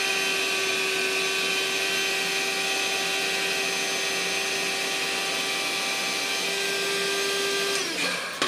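Handheld electric air pump running steadily, pumping air into an inflatable camping mattress through its valve, a steady whine. Near the end it is switched off and winds down with a falling pitch, and a short sharp click follows.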